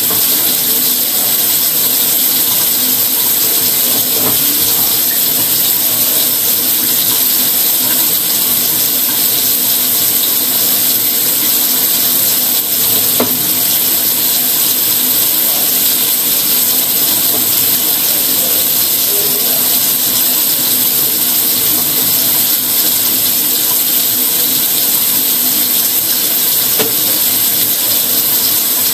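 A steady, loud hiss, strongest in the highest pitches, unchanging throughout.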